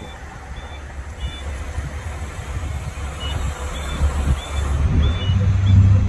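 Low, steady diesel-type engine rumble from the boom crane truck working the lift, swelling louder and higher in the last couple of seconds. A few short high chirps sound over it.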